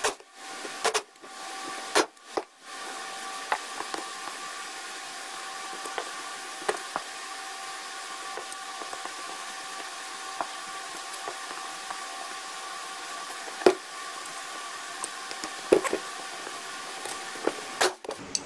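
Pneumatic wrench running with a steady hiss and whine, backing out bolts on a small outboard powerhead. It starts and stops in short bursts over the first few seconds, then runs on steadily, with scattered sharp metallic clicks, the loudest about two-thirds of the way through.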